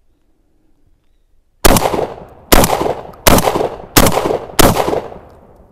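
Emperor Arms Mogul Ultra semi-automatic 12-gauge shotgun firing double-aught buckshot, five shots in quick succession starting about a second and a half in, each shot followed by a short echoing tail.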